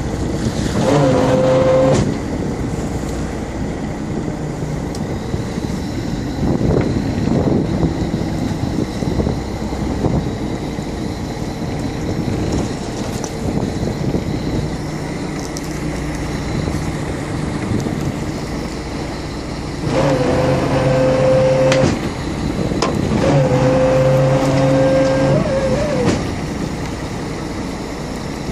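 Fishing boat's engine running steadily with a low hum. A higher steady whine joins it for about two seconds at the start, then twice more in the last third, rising in pitch as it comes in the last time.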